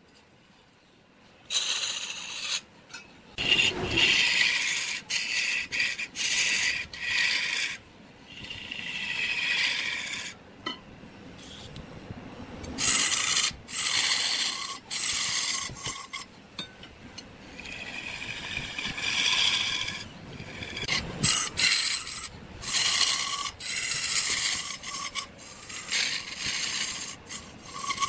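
A turning chisel scraping into a large block of red hardwood spinning on a wood lathe, a rasping cut coming in repeated strokes with short pauses between them. It starts after about a second and a half of near silence.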